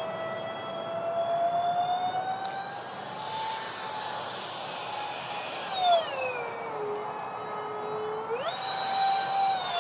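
Whine of the Freewing Su-35 model jet's electric ducted fans in flight, its pitch following the throttle. It climbs slowly, falls away steeply about six seconds in, then jumps sharply back up near the end with a rush of air.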